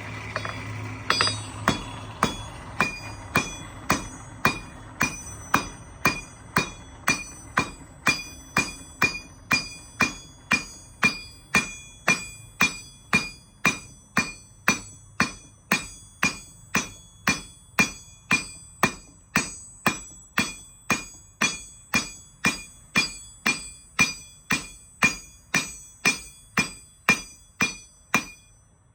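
Hand hammer striking hot steel on a 66 lb Vevor London pattern steel anvil while forging a quarter-inch bar, a steady run of about two blows a second, each with a bright ring from the anvil. The blows start about a second in.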